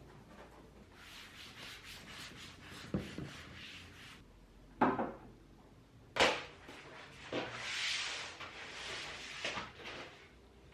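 Household cleaning: rubbing strokes on a surface, broken by four sharp knocks of objects being handled and set down.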